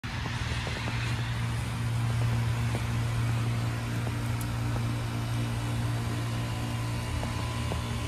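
Outdoor heat pump units running: a steady low compressor hum with a fainter overtone above it, over an even airy hiss, with a few faint ticks.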